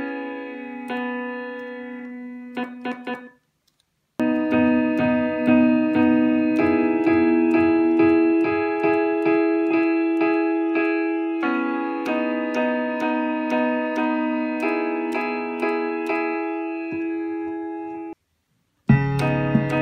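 Piano chords played on the keys of a Teenage Engineering OP-1 synthesizer, from a sampled grand piano sound, each chord ringing and fading, with light regular ticks underneath. The playing stops dead twice, about three seconds in and again near the end.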